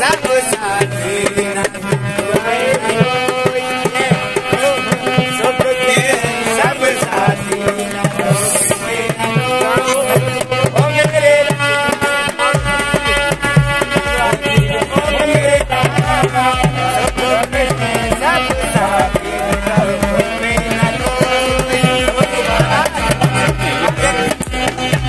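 Harmonium and dholak played together: held, reedy harmonium chords over a steady hand-drummed dholak rhythm.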